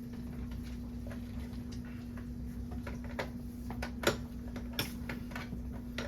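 Scattered light clicks and taps at uneven intervals over a faint steady hum, the sharpest two about four and five seconds in.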